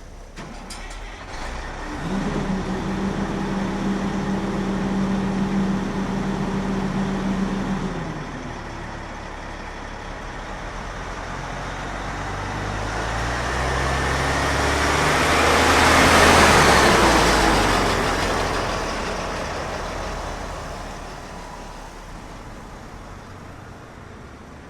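Diesel Oshkosh 8x8 military truck: its engine holds a steady note for about six seconds, then the truck drives by, growing louder to a peak about two thirds of the way in and fading away.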